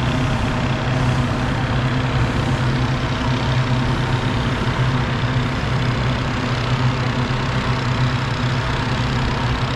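A gasoline-engine balloon inflator fan running steadily with a low, even hum, as used to inflate a hot-air balloon envelope.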